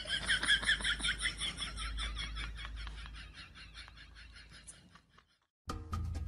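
A rapid run of short, high chirping calls, several a second, growing fainter until they stop about five seconds in. Music starts near the end.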